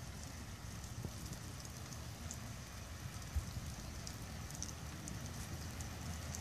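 Light rain falling and dripping on wet foliage, a steady hiss with scattered faint drop ticks over a low rumble. A single dull thump about three and a half seconds in.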